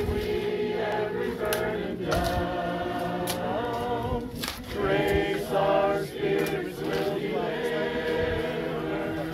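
A congregation singing a hymn unaccompanied, many voices holding long sustained notes together. A few short knocks and scrapes of shovels working earth sound among the singing.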